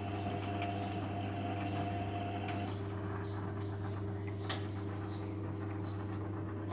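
Beko WMA 1510 washing machine running its main wash: a steady motor hum with several constant tones. A higher tone drops out about two and a half seconds in. Faint scattered ticks run throughout, and there is one sharper click about four and a half seconds in.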